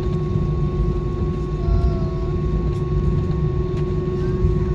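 Steady cabin noise inside a jet airliner after landing: a low rumble with a constant hum from the aircraft's engines and air system.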